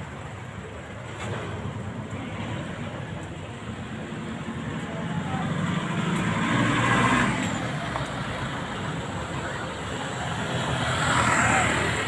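Road traffic: a steady rumble of vehicle engines and tyres, swelling as vehicles pass close about halfway through and again near the end.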